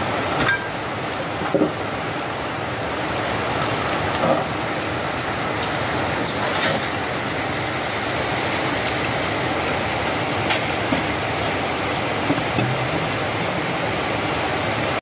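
Heavy rain falling steadily, a constant hiss with a few sharper taps now and then.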